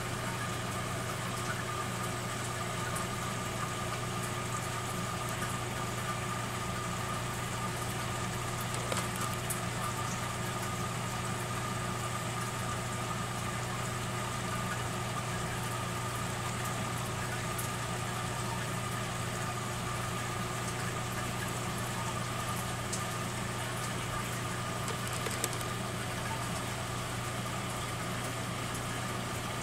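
Steady hum of running aquarium equipment, with an even hiss and a faint steady whine over it, unchanging throughout.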